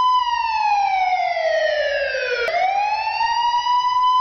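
Police car siren wailing: one long tone sliding slowly down in pitch for about two and a half seconds, then sweeping back up more quickly.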